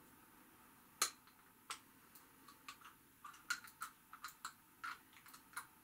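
Faint, irregular small clicks of little metal parts handled in the fingers: the battery compartment of a heavy Matrix of Leadership replica being worked open. One sharper click about a second in, then a quicker run of clicks in the second half.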